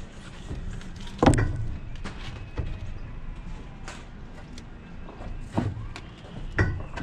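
Loose building stones knocking and clattering against each other as they are handled and set down on a scaffold, a few irregular sharp knocks with the loudest about a second in.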